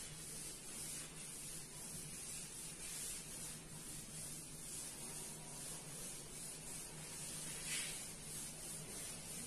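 Cloth duster wiping chalk off a blackboard: faint, repeated rubbing strokes, each sweep a soft hiss.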